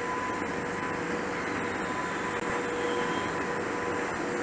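An EH200 electric locomotive hauling a railway crane, rolling past at a distance: a steady train rumble mixed with city noise, with a faint steady hum.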